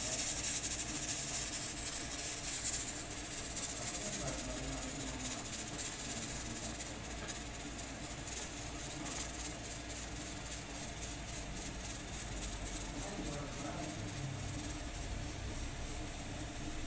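Aluminium pressure cooker venting steam through its weighted valve: a steady high hiss, louder for the first half and then softer. Steady venting is the sign that the cooker is up to pressure.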